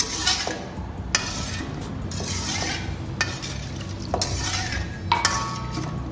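A metal spatula scraping and knocking against a cooking pan, about once a second, stirring and turning food in spice paste and coconut milk as it sizzles. A ringing metal clink about five seconds in.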